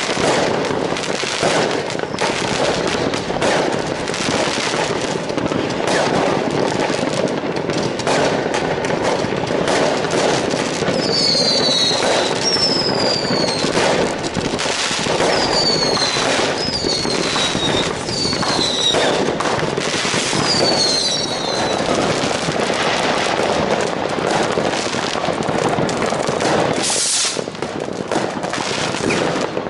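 Consumer fireworks going off all around: a continuous din of firecracker crackle and rocket bangs. In the middle comes a run of short whistles that fall in pitch, and near the end a brief loud hiss.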